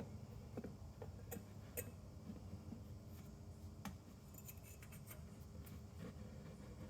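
Faint scattered clicks and light metallic rattles of something being handled, over a low steady hum.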